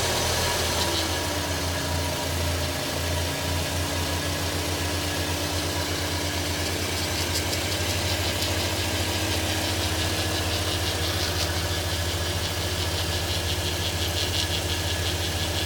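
2015 Audi A3's 1.8-litre turbocharged four-cylinder engine idling. A steady tone drops in pitch about a second in and then holds, and a fast, even high ticking becomes clearer in the second half. This is a noise from the front driver's side that the owner cannot trace: it is not from the pulleys, the dealer first blamed the turbo impeller scraping its housing, and later called it normal.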